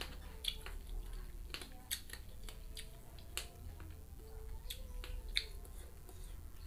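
Close-up crunching and chewing of raw young kedondong (ambarella) fruit, with irregular sharp crunches and wet mouth clicks over a low steady hum.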